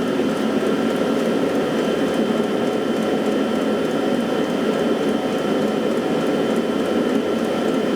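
Lavaner Pro 2 kW diesel air heater running at full power: a steady rushing noise with two thin, steady whining tones above it, measured at about 67 to 69 decibels from 1.5 m.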